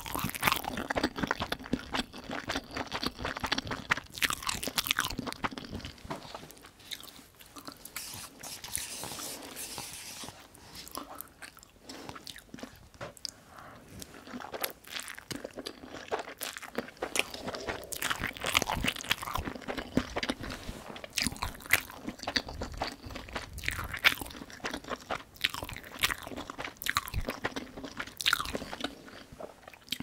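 Close-miked eating: a person biting and chewing food, with a steady run of irregular crunchy and wet mouth sounds.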